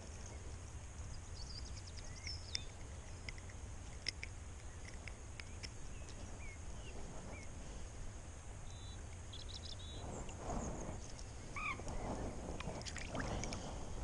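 Steady low rumble of wind on the microphone, with small birds chirping now and then. Soft rustling of hands and sleeves handling a small fish comes in a few bursts toward the end.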